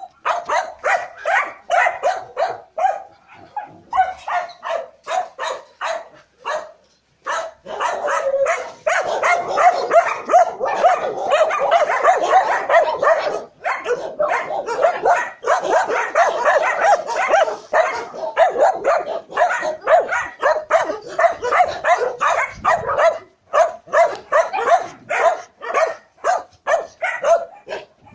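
Dogs barking rapidly, several high-pitched barks a second with only brief pauses, thickest and overlapping through the middle.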